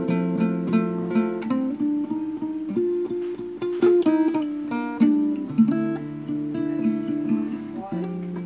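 Acoustic guitar played slowly, fingerpicked notes over held chords, changing chords every second or two.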